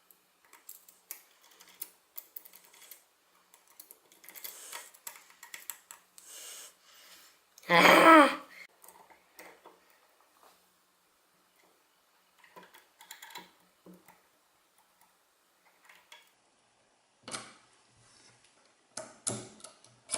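Light, irregular metal clicks and scrapes of a tubular lock impressioning tool being worked in a tubular lock. About eight seconds in comes one brief, much louder pitched sound.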